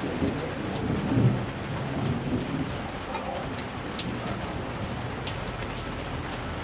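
Rain falling during a thunderstorm, with scattered sharp drops striking nearby. A low rumble of thunder swells about a second in and fades over the next couple of seconds.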